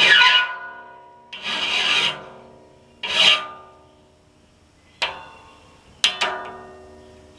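Hand file rasping across the steel teeth of a large circular sawmill blade: three strokes about one and a half seconds apart, the big steel blade ringing after each. Near the end come two sharp clinks, a second apart, each leaving the blade ringing again.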